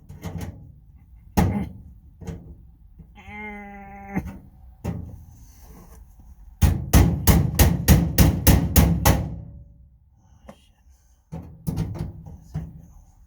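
Metal knocks and clanks from working on a tool chest drawer and its rails, with a brief pitched squeak a little over three seconds in. About halfway through comes a fast run of about nine heavy strikes, roughly three a second, like a drawer or rail being banged into place.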